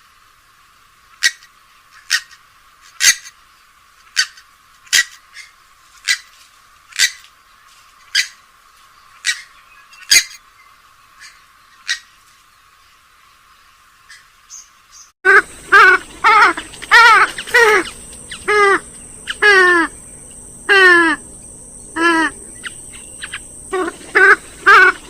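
Purple swamphen calls played as a bird lure. First a sparse series of sharp, short calls about once a second. About fifteen seconds in, the sound switches abruptly to a louder run of rapid calls, each sliding down in pitch.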